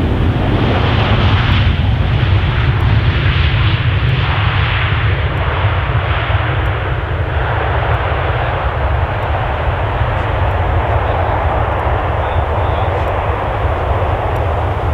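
Aircraft engines running loud and steady: a deep rumble under a broad rushing noise that swells and eases slightly.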